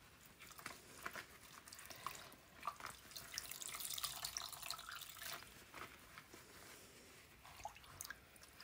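Faint dripping and light splashing of soapy wash water as wet wool locks are squeezed out and put into a plastic basin.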